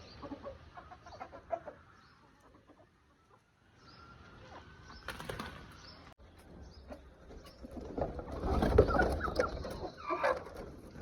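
Chickens clucking in short scattered calls, with a louder flurry of wing flapping about eight seconds in.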